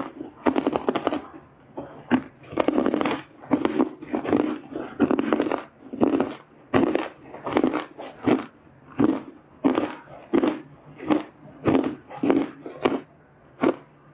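Close-up crunching of dry loess clay being bitten and chewed, the chunks crackling and breaking with each chew in a steady rhythm of about one and a half crunches a second.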